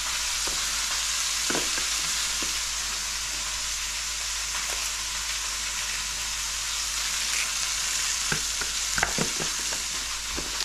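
Chicken legs sizzling steadily in a pan as the second side browns on the residual heat of a burner that has been switched off. Near the end there are a few light knocks as onion pieces are handled and set on a metal sheet tray.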